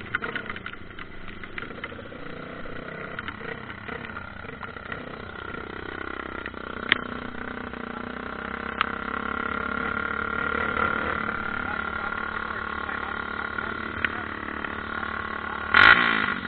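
Dirt bike engine running steadily, growing louder from about six seconds in, with a brief loud burst near the end.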